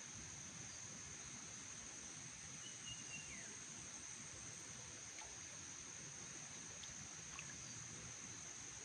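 Insects, crickets by their sound, trilling steadily in one continuous high tone over a faint outdoor background hiss, with a few brief faint chirps about three seconds in.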